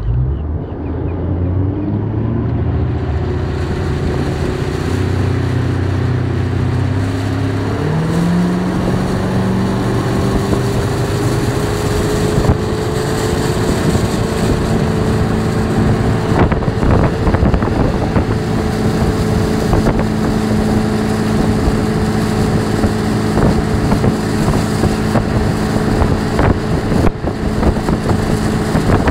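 Tow boat's engine pulling away hard, its pitch climbing over the first several seconds, then running steadily at speed as it tows a barefoot water skier off the boom. The rush of spray and water and wind on the microphone builds with the speed.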